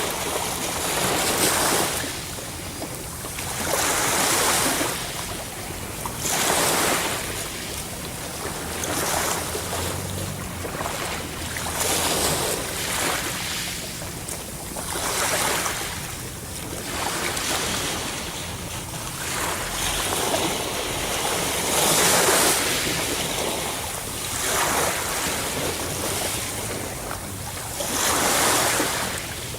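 Ocean waves breaking on the shore, one after another, each rushing in and washing back every two to three seconds.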